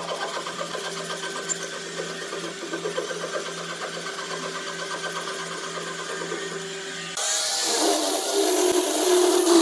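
Electric sewing machine running steadily, a hum with fast even needle ticking, as fabric is stitched. About seven seconds in it cuts off abruptly, and a louder, brighter sound with wavering tones takes over.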